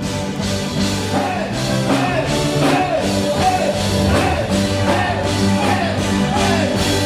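Ska band playing live, the music swelling over the first second or two and then holding steady.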